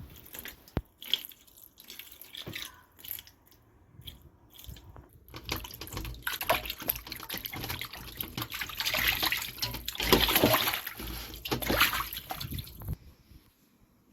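Water running from a tap and splashing in a sink, uneven and building up, then stopping about a second before the end.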